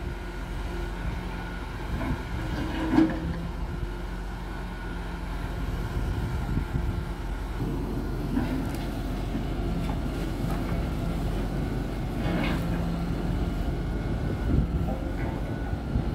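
Diesel engine of a grapple-loader debris truck running steadily while its hydraulic knuckle-boom grapple is worked, with a steady high whine over the engine and a sharp knock about three seconds in.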